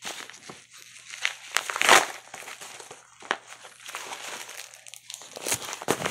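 Crinkling and rustling of a padded mailer envelope being handled, with a louder burst of crinkling about two seconds in.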